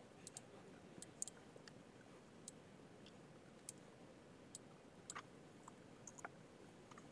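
Near silence with faint, scattered clicks from a computer mouse and keyboard, about a dozen spread unevenly through the stretch.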